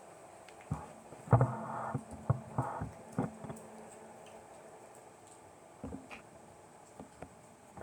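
Irregular taps, knocks and short scuffling sounds of pet lovebirds moving and pecking about. They come in a busy cluster in the first three seconds, with a few more taps near six seconds and near the end.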